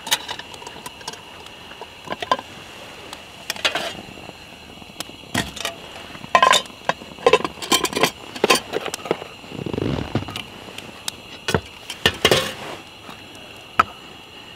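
Swedish Army mess kit pot and Trangia alcohol-stove windscreen clinking and knocking as they are handled and lifted off the stove once the water has boiled, about a dozen sharp metallic knocks with a short ring, over a faint steady hiss.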